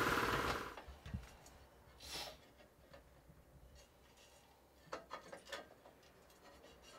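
A workshop machine running stops within the first second, and then light metal clicks and taps follow as a sheet-metal tank part with a welded filler-cap ring is handled on the bench.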